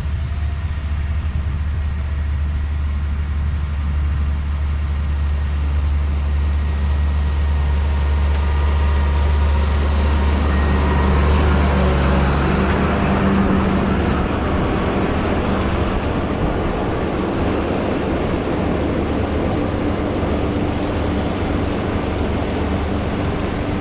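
Fendt tractor running steadily while pulling a Kverneland round baler, a continuous engine and machinery drone. The deep hum fades about halfway through and a rougher, noisier machine sound takes over.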